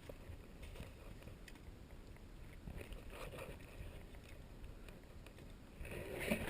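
Faint low rumble of handling noise on the camera's microphone, with scattered light clicks and rustles that grow louder near the end.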